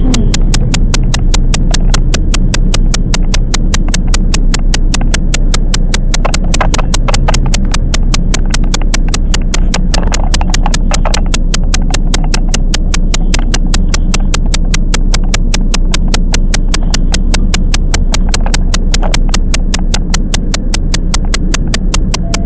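Running noise of a Toyama Chiho Railway 10030-series electric train, a steady low hum, with a sharp, even ticking about five times a second that holds the same pace throughout.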